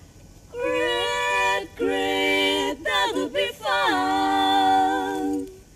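Women singing unaccompanied in the style of a Naga folk tune. The voices move through four phrases of long held notes, with a short wavering run in the middle.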